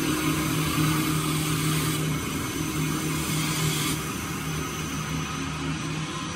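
Automatic wood copying lathe running, its motor humming steadily while the cutter shapes a spinning wooden blank, with a hiss of wood being cut that eases off about four seconds in.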